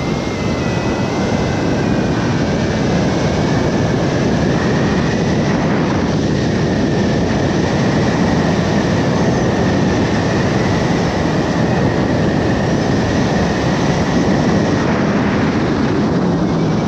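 Loud, steady rush of wind over the microphone as a hang glider dives for speed, with a steady high whistle running through most of it. A flight variometer beeps in short stepping tones right at the start.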